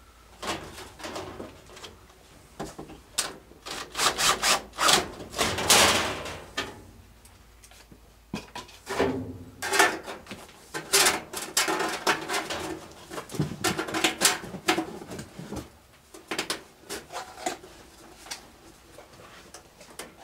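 Sheet-metal furnace flue pipe and its flexible aluminium vent connector being twisted and worked by hand at the joint: irregular scrapes, creaks and short squeaks of metal rubbing on metal, coming in bursts.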